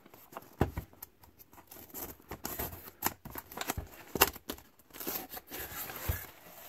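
A cardboard box being handled and its packing tape slit open with a utility knife: scattered scrapes, taps and rustles of blade and cardboard, the sharpest about four seconds in.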